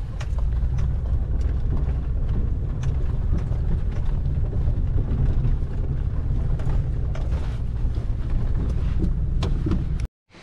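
Pickup truck driving slowly on a gravel road, heard from inside the cab: a steady low rumble of engine and tyres with scattered light clicks. It cuts off suddenly about ten seconds in.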